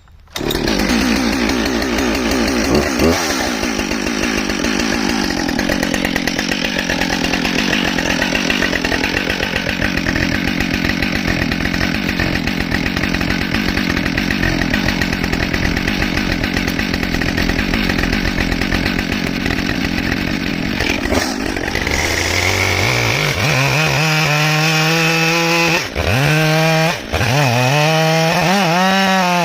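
Husqvarna 572XP two-stroke chainsaw starting from cold and running steadily for about twenty seconds, then revving up with a rising whine to high revs, easing off briefly twice near the end.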